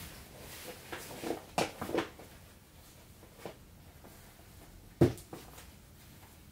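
Scattered rustles and knocks of a person changing clothes, pulling on a pair of shorts, with one sharp thump about five seconds in.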